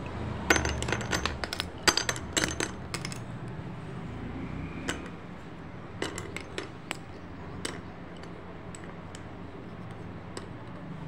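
Slate pencil sticks dropped into a stone bowl, clattering and clinking against each other and the bowl in a quick run of sharp clicks over the first three seconds. A few single clicks follow as more sticks are set on the pile.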